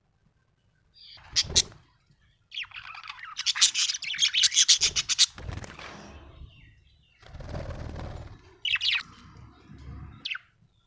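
Budgerigar chirping and chattering in bouts: a sharp chirp about a second in, a fast run of clicking chatter for a few seconds, a softer noisier stretch, then two short sharp chirps near the end.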